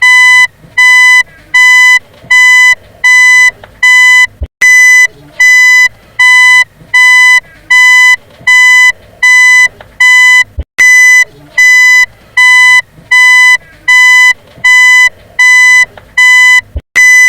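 Car reversing warning beeper sounding a steady run of short, buzzy electronic beeps, a little under two a second, all on one pitch. A sharp click cuts in about every six seconds.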